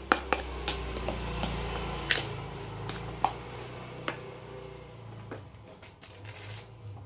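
A spoon stirring diced boiled potato and carrot with chopped scallion and celery in a plastic mixing bowl, with scattered light clicks and taps of the spoon and plate against the bowl.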